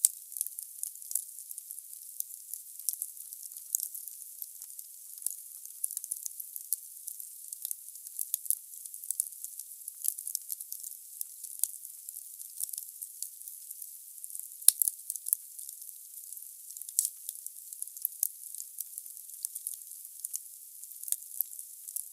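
Wood fire burning in a fireplace: a steady hiss with frequent small crackles of burning logs, and one louder pop about two-thirds of the way through.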